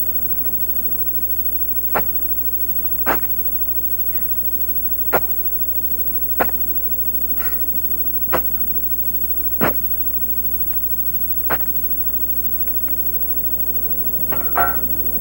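A steel digging bar strikes hard, rocky ground in single sharp knocks, about seven of them, one every one to two seconds. A quick cluster of knocks and a short scrape follow near the end. A steady hiss and low hum from the old VHS transfer run underneath.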